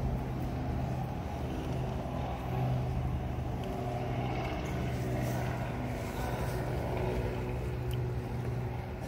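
Highland bagpipes: a steady low drone with a shifting melody line above it.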